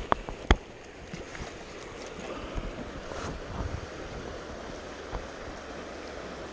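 Steady rushing of a mountain river flowing over rocks, with a couple of sharp knocks in the first half second.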